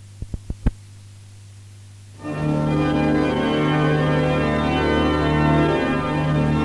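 Tape hiss and a low mains hum, four quick clicks within the first second, then about two seconds in an organ starts playing sustained chords: the opening of a psalm track.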